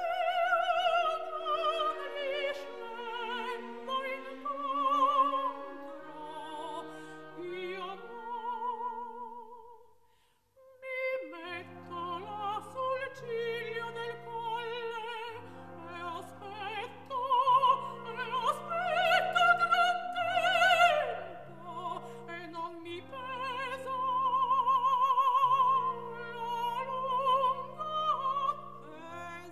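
An opera aria: a singer with wide vibrato over orchestral accompaniment. About ten seconds in it fades almost to silence, then comes back with steady low held chords under the voice.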